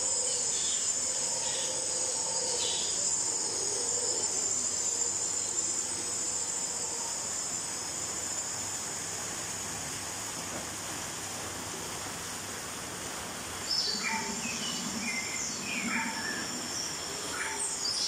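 Crickets chirping in a steady high trill over the even rush of water falling from small artificial rock waterfalls.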